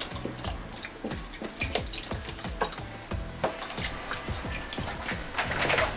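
White wine poured from a carton into a stainless steel pressure cooker of oxtail and vegetables: a continuous stream of liquid splashing into the pot, louder near the end.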